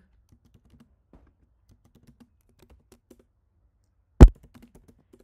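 Typing on a computer keyboard: a run of light key clicks, then one loud knock a little past four seconds in, followed by a few more keystrokes.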